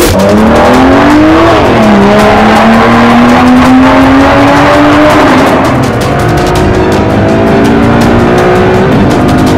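Race-car engine sound revving up and shifting gears, its pitch climbing and then dropping back three times, over background music.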